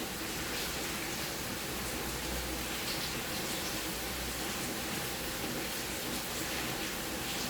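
Steady background hiss, with a few faint light ticks now and then.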